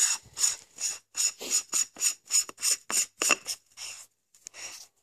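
Acebeam X70 flashlight head being screwed back onto its battery body: the threads rasp in a quick series of short strokes, about three a second, with each twist. They turn fainter and fewer near the end.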